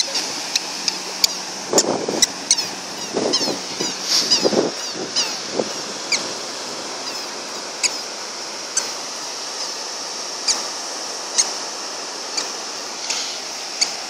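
Surf washing on the beach, with wind on the microphone. Short high squeaks come at irregular intervals, about one per step, from a toddler's squeaker sandals as he walks on the sand.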